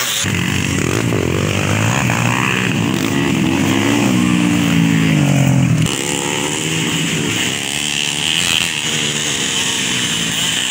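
Dirt bike engines revving on a dirt track, the pitch climbing and falling as the bikes accelerate and shift. The loudest engine drops away suddenly about six seconds in, leaving a steadier buzz of several bikes.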